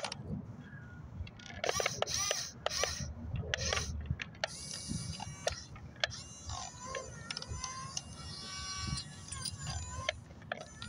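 Yigong 978 1/20-scale RC excavator working: a burst of clicks and scratches for a couple of seconds, then the whine of its small electric gear motors, stepping up and down in pitch as the arm and upper body move.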